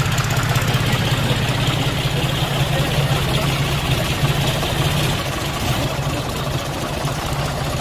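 John Deere 5050D tractor's three-cylinder diesel engine idling steadily close by, an even low chugging with no revving.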